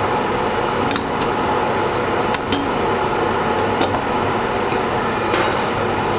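Steady background hiss with a scattered series of light clicks and clinks, cutlery against a dish or bowl.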